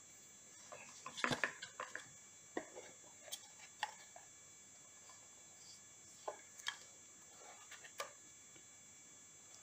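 Small plastic electronic gadgets (a portable GPS jammer, its antenna and plug-in chargers) being picked up and set down in a foam-lined box: light clicks and knocks, busiest about a second in, then a few single taps spread through the rest.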